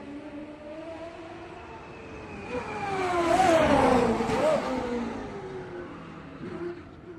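Racing car engine passing by at speed: it builds up, is loudest about three to four seconds in with a couple of brief revs, and its pitch drops as it goes away.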